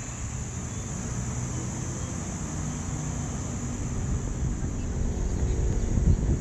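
Forest ambience: a steady, high-pitched insect drone over a low rumble of wind on the microphone, which gets a little louder near the end.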